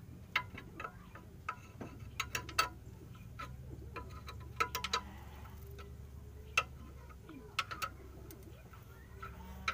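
Irregular sharp metallic clicks and taps, some in quick clusters, as a new front stabilizer link is worked into place by hand on a Suzuki APV's suspension, over a steady low hum.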